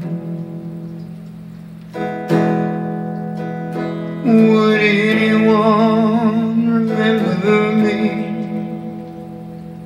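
Music: guitar chords ringing, freshly struck about two seconds in, with a held, wavering melody line over them through the middle that fades toward the end.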